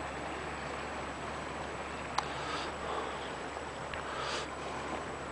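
Quiet outdoor background noise with a steady hiss, a single sharp click about two seconds in and two short breathy hisses.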